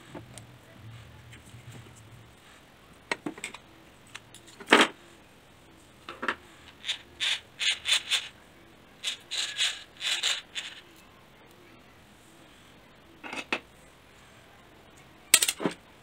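Small plastic parts of a toy RC car's gearbox clicking and knocking as the housing is pried open and the shaft and gears are pulled out: scattered sharp clicks, with a run of quick clicks in the middle.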